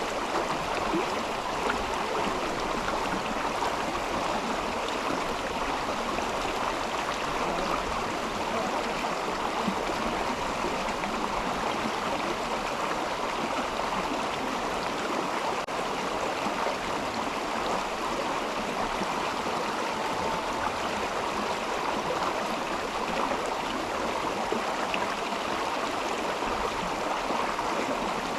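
Mountain river water running steadily, an even rushing with no breaks.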